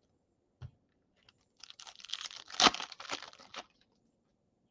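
Foil trading-card pack wrapper being torn open and crinkled. A faint click comes first, then about two seconds of crackling with one louder rip in the middle.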